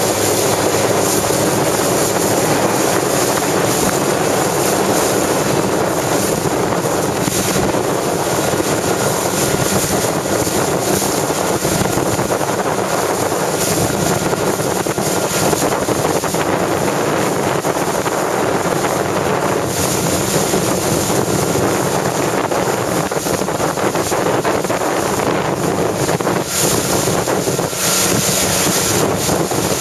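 Strong wind buffeting the microphone over choppy water, a loud, steady rushing noise.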